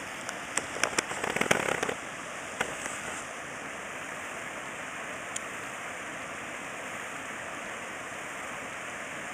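Steady rush of water pouring out of a dam's bypass flume outlet, with a burst of sharp crackling clicks in the first two seconds and a couple of single ticks later.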